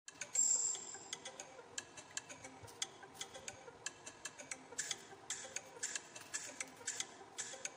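Knife cutting a bitter melon on a wooden chopping board: a run of faint, light ticks, unevenly spaced at about three a second.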